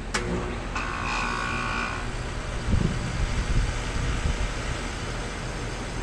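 Outdoor central air conditioner condenser unit starting up: a sharp click right at the start, a brief high whine, then a low hum and rumble that comes in about three seconds in and keeps running.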